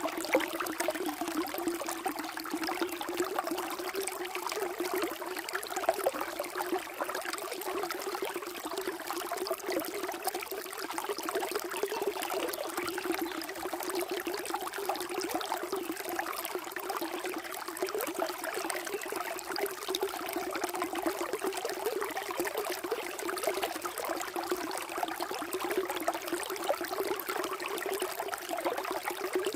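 Flowing water running steadily: a continuous, even trickling and babbling with no breaks.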